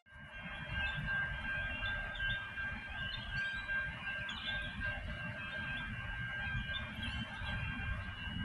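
Railway level crossing warning bell ringing with a steady high electronic tone, with birds chirping and wind rumbling on the microphone.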